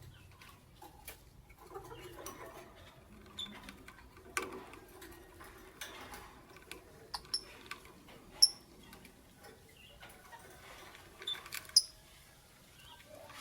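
Lovebirds making scattered clicks and taps with a few brief, high chirps, the sharpest two about eight and twelve seconds in.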